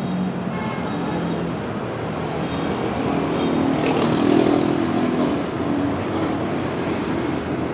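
Busy city road traffic: car and motorcycle engines running and tyres on the road in a steady wash, swelling about four seconds in as a vehicle passes close.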